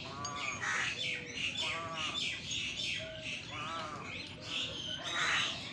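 Birds calling: a harsh call repeats about every two seconds over busy high chirping from smaller birds.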